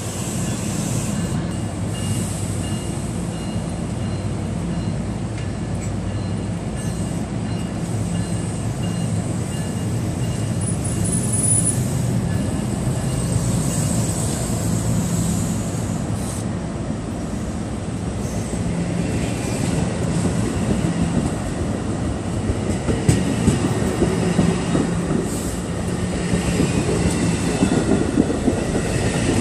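NJ Transit Bombardier MultiLevel commuter coaches rolling slowly past with a steady low hum and rumble. Near the end, wheel clicks over the rail joints grow louder as the train picks up speed.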